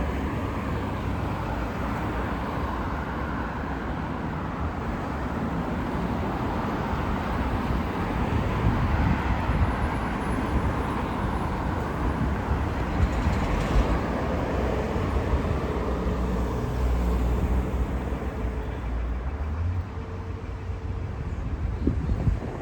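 Road traffic: cars driving past in a steady rumble of engines and tyres, a little louder in the middle.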